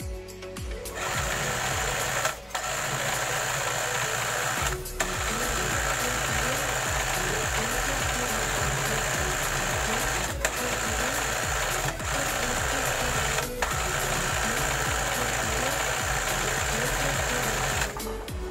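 Electric sewing machine stitching a seam in long steady runs, starting about a second in and stopping just before the end, with four brief pauses along the way.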